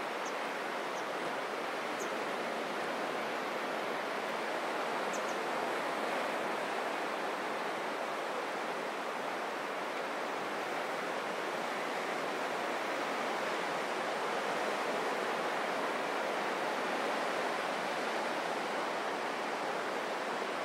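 Ocean surf breaking and washing up a black volcanic-sand beach: a steady, unbroken roar of waves. A few faint high chirps sound in the first few seconds.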